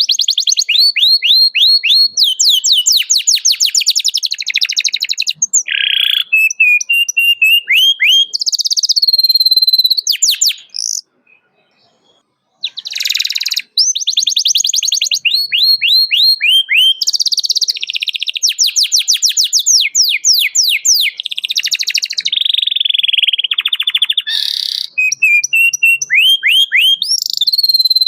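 Domestic canary singing loudly in fast trills of rapid repeated high notes and chirps. The song breaks off for about a second and a half about eleven seconds in, then resumes.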